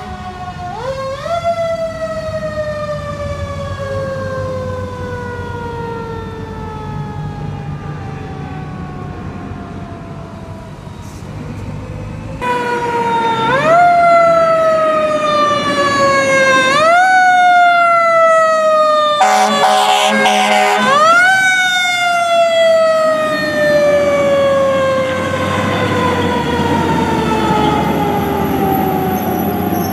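Fire engine's mechanical siren, wound up again and again with a quick rise and left to coast down in a long falling wail. Near the middle a short steady blast, like an air horn, sounds before the siren winds up once more.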